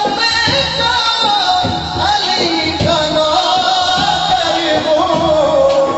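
Man singing a devotional naat into a microphone, holding long notes that slide and waver in pitch, over a steady rhythmic beat, heard through a PA system.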